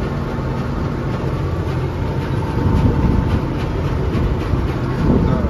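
Ford farm tractor's diesel engine running under load while mowing, heard from inside the cab, with a steady rattle of the cab and its fittings over the engine noise. The noise drops away sharply near the end.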